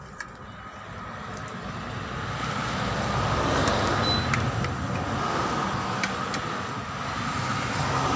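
A motor vehicle's engine running nearby, a steady rumble that grows louder over the first three seconds and then holds.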